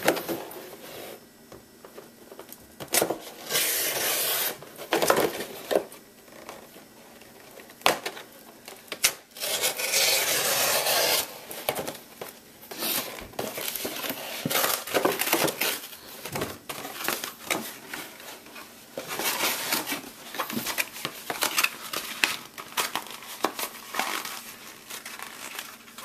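Pocket knife slicing through a cardboard drink-can carton, with the cardboard tearing, creasing and crinkling as the box is broken down flat; a series of uneven rasping cuts and tears with scattered sharp clicks.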